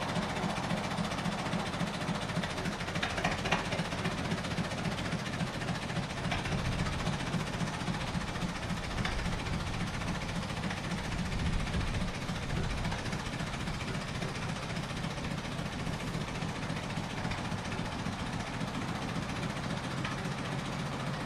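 Railway locomotive running with a low, steady rumble as it moves slowly away, with a few metallic clanks about three seconds in.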